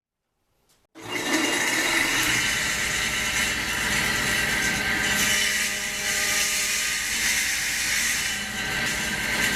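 A power saw running and cutting wood, cutting in suddenly about a second in after silence and then holding steady.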